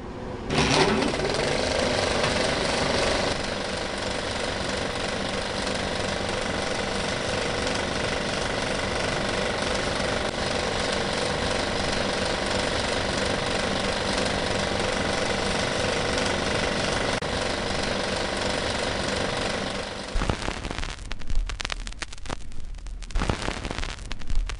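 A steady mechanical running noise with a constant hum for about twenty seconds. It then stops and gives way to irregular crackles and pops over a low hum: the surface noise of a vinyl record turning on an old record player.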